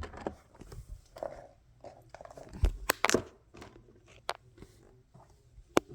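Scattered clicks and knocks with light rustling from small toys being handled and rummaged through, with a few sharper clicks about three seconds in and near the end.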